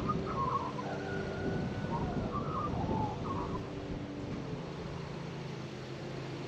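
Australian magpie singing softly, quiet warbling notes with one longer held note, fading out after about three and a half seconds. Under it run a steady low hum and wind noise.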